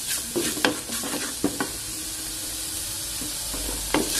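Wooden spatula scraping and stirring sautéed button mushrooms and flour in a metal pot over a steady frying sizzle, with a few sharp scrapes in the first second and a half and another near the end. The flour is being cooked into the mushrooms to take away its raw taste and thicken the cream soup.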